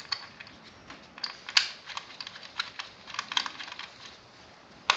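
Irregular light clicks and taps of small metal and plastic parts being handled as an ignition coil and its retaining screw are fitted into the top of the engine.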